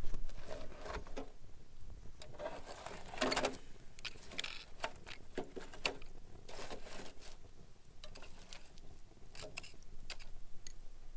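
Wood fire in a small portable grill crackling with irregular sharp snaps, with a few longer crunching noises in between.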